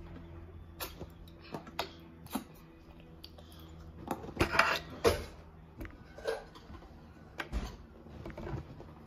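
Plastic juice bottles being handled and set down on a table: scattered clicks and knocks, with a louder clatter about four to five seconds in.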